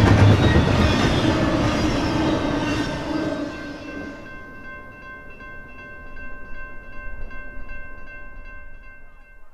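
Freight train cars rolling past with wheel clatter, the noise falling away over the first four seconds as the train recedes. Then a steady, multi-tone locomotive horn chord is held in the distance, swelling slightly past the middle.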